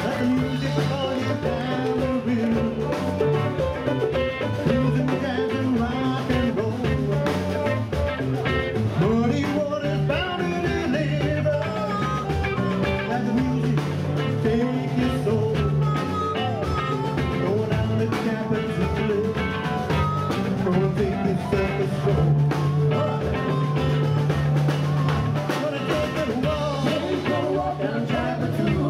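Live blues band playing a song: drum kit, electric guitar, bass and keyboards, with harmonica and singing.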